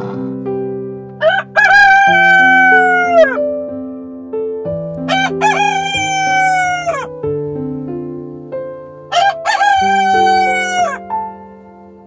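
A rooster crowing three times, each crow about two seconds long and falling off at the end, over soft background keyboard music.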